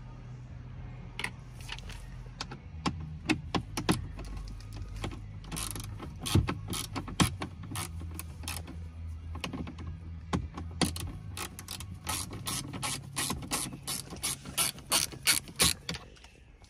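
Hand ratchet with an extension and T27 Torx bit clicking as it backs out the screws on a car's centre console trim. The clicks come in quick irregular runs and grow denser toward the end.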